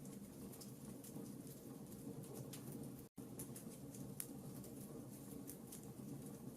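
Wood fire in a fireplace crackling, with scattered sharp pops over a low steady rumble. The sound drops out completely for a split second about three seconds in.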